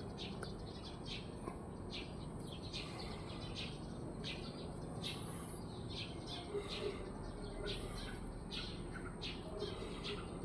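Small birds chirping outdoors in the early morning: short, high chirps repeating irregularly, about two a second, over a steady low background hum.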